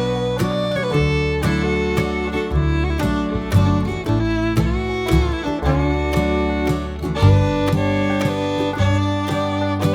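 Instrumental background music: a sustained melody line with sliding notes over regularly plucked strings and a bass line.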